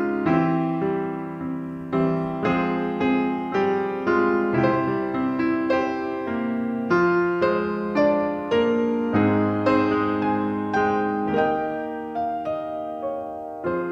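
Grand piano played solo: a slow run of chords and notes, each struck and left to ring, a new one about every half second to second.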